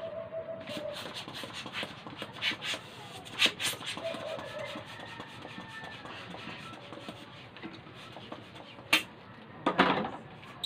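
Small hand pump inflating a long latex modelling balloon: a quick run of pump strokes and clicks over the first few seconds, then latex rubbing as the inflated balloon is handled, with a sharp click about nine seconds in and a louder rubbing squeak just before the end.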